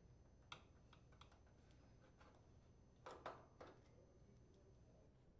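Faint clicks and ticks of a screwdriver and screws being worked out of a range's metal control-panel frame, with a slightly louder cluster of clicks and short scrapes about three seconds in.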